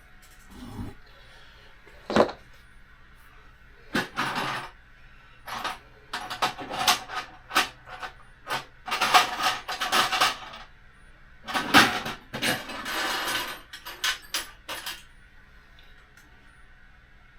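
Small metal parts and tools clinking and rattling on a workbench: a run of sharp clicks and short clattering bursts, busiest in the middle and dying away a couple of seconds before the end.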